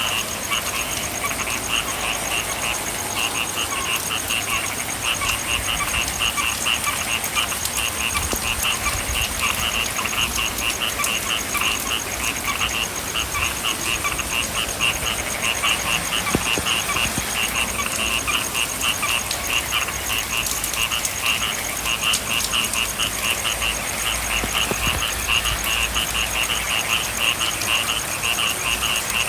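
A chorus of frogs croaking in a fast, regular pulsing rhythm, over the steady hiss of rain, with a thin high steady trill above them.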